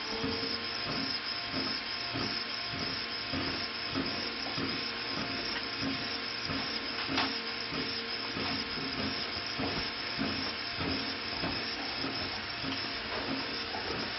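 Small electric extinguisher fan on a fire-fighting hexapod robot running steadily, a breathy hiss of air with a faint motor hum and a few light ticks, as it blows at a candle flame to put it out.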